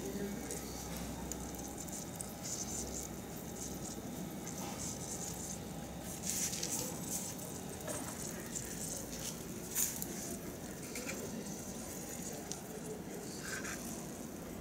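Charcoal grill with chicken on skewers sizzling over the coals: a steady hiss with scattered crackles and pops. Near the end there is a short clatter as the bamboo skewers are handled.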